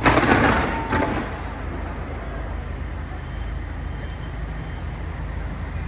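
Two firework bangs about a second apart, the first louder and echoing briefly, over a steady hum of city and crowd noise.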